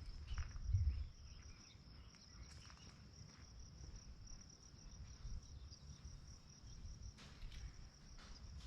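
Steady high-pitched insect trill over a low rumble, with a louder bump about a second in and a few faint knocks.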